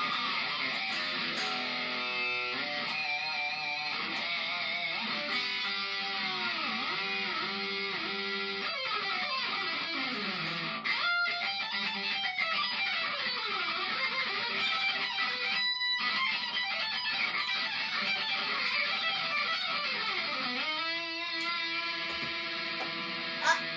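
Electric guitar played with a power drill held against the strings (the drill technique), giving sustained, rapidly picked notes that slide up and down in pitch.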